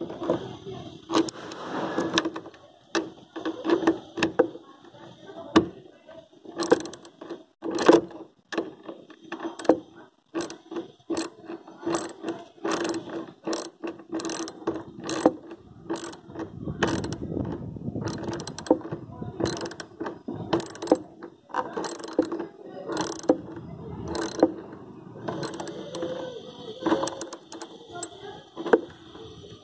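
Ratchet wrench clicking repeatedly, with short quick runs of clicks, as it turns a socket to tighten a side mirror's mounting nuts. A steady low hum sits underneath.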